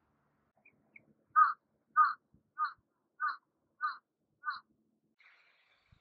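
A crow cawing six times in a steady, evenly spaced series, the first two caws the loudest.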